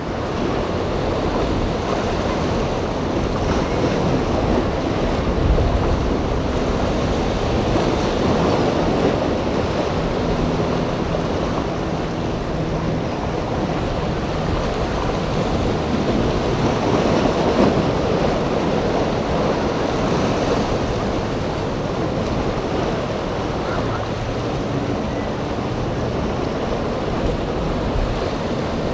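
Ocean waves breaking and surf washing through an inlet, with wind buffeting the microphone. A faint low drone of boat engines runs under the surf.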